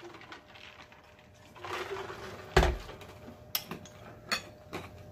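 Drinking from a large plastic jug, then a single heavy thud about two and a half seconds in as the jug is set down on the table. A few short wet mouth clicks follow.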